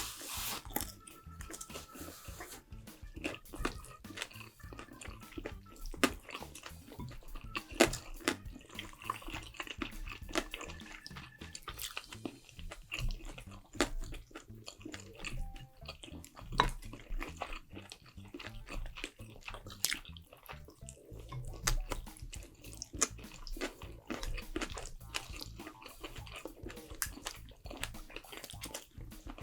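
Close-up eating sounds: wet chewing and mouth smacks with many short, irregular clicks.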